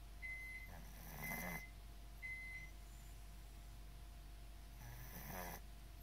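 Domestic cat with a congested nose breathing with a snore-like rasp: two noisy breaths about four seconds apart, with three brief thin, high whistles in the first half. These are the sniffles of a cat with a cold.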